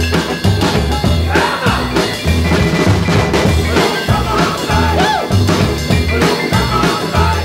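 Music with drums and a steady, repeating bass line, with a voice or lead instrument over it.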